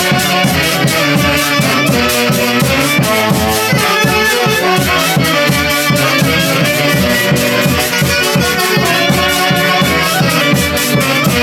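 Andean orchestra playing a huaylijía, Huancayo's festive dance music, with a steady beat.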